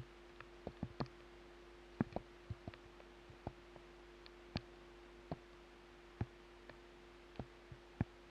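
Raindrops tapping on the camera's housing: sharp ticks at uneven intervals, a few a second, some louder than others, over a faint steady hum.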